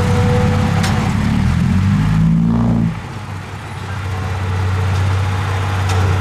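Diesel engine of heavy earthmoving equipment working hard. Its pitch climbs briefly about two seconds in, then it drops off to a quieter, steady run about three seconds in.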